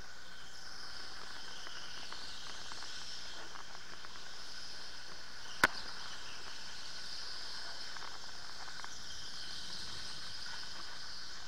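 Electric go-kart running at speed, a steady high whine and hiss that swells and fades through the lap. One sharp knock about five and a half seconds in.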